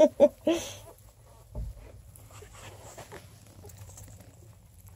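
Newborn coonhound puppies giving a few short squeaks in the first second while nursing on their mother, then faint shuffling in the straw, with a soft thump about a second and a half in.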